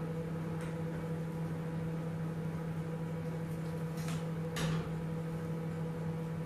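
Steady hum of a microwave oven running. A few light clicks and a short scrape of a pot being moved on the gas stove's grate, the loudest about four and a half seconds in.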